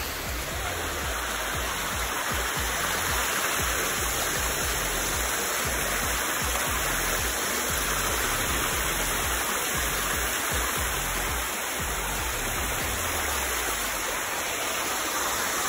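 Shallow stream running over rocks and small cascades: a steady rush of water.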